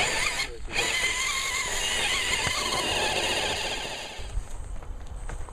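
RC scale crawler's electric motor and gears whining under throttle, the pitch wavering as the throttle changes, then dropping away about four seconds in.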